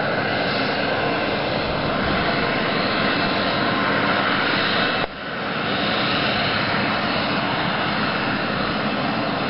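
Steady drone of an aircraft engine, with a brief sudden dip in level about halfway through.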